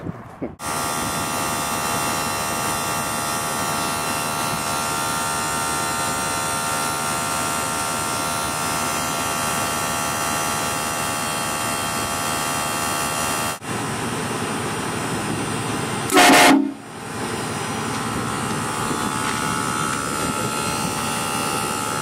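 Onboard electric air compressor running steadily, refilling the air tank of a HornBlasters train horn kit. About 16 seconds in, the train horns give one short, loud blast over it.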